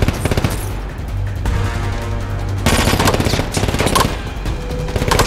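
Rapid automatic gunfire in bursts, with bullets striking metal: a short burst at the start and a longer, denser volley from about halfway through. A film score runs underneath.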